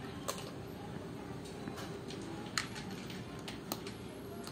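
A kitten crunching dry kibble from a plastic bowl: irregular sharp clicks, about seven of them, the loudest a little past halfway, over a faint steady hum.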